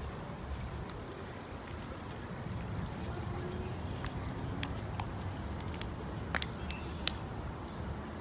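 Shallow stream trickling over pebbles under a steady low rumble, with several sharp clicks in the second half.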